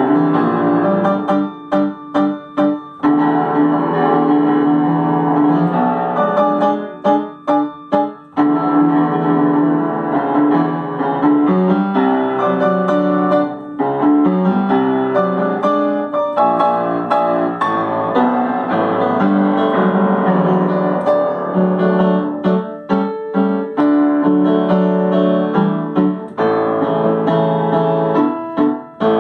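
Yamaha upright acoustic piano played solo: a lively piece of continuous running notes and chords, broken several times by passages of short, detached chords with brief gaps between them.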